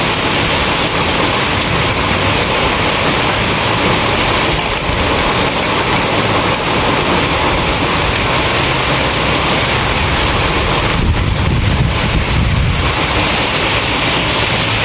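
Steady heavy rain, with a low rumble swelling for about two seconds near the end.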